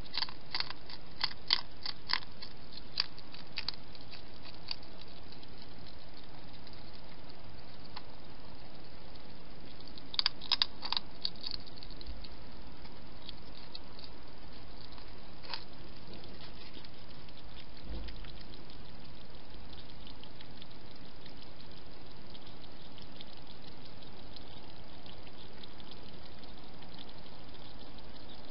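A hedgehog feeding from a bowl: quick runs of sharp clicks and smacks in the first few seconds and again about ten seconds in, over a steady hiss.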